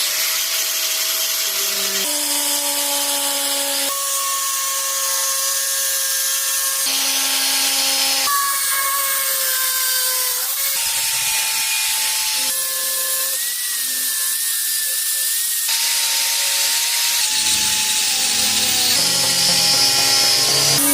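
A small power tool whines and hisses as it works PVC parts. It comes as a run of short clips, a second or few each, with the pitch of the whine shifting from clip to clip.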